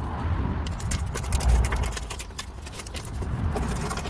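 A quick, irregular series of light clicks and taps over a low rumble.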